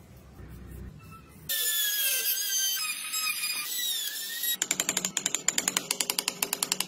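Compact trim router cutting into a wooden carving: a high whine with wavering pitch that starts suddenly about a second and a half in. Near the end it gives way to a rapid, even clicking, about ten clicks a second.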